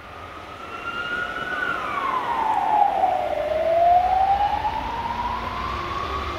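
Emergency vehicle siren wailing: its pitch slides down over about two seconds, then climbs slowly back up, loudest around the lowest point.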